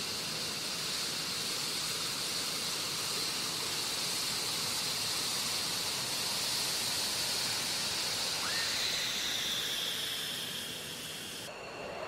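McDonnell Douglas F-15E Strike Eagle's twin Pratt & Whitney F100 turbofans at taxi power: a steady rushing noise with a high whine that rises slightly, holds, then falls away as the jet moves past. Near the end the sound cuts abruptly to a quieter, steady hiss.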